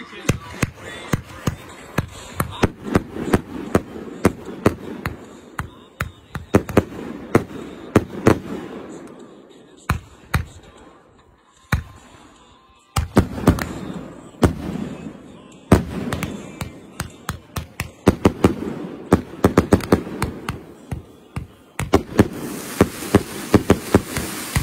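Aerial fireworks firing in rapid succession, a dense run of sharp reports with a lull about ten seconds in before the volley picks up again.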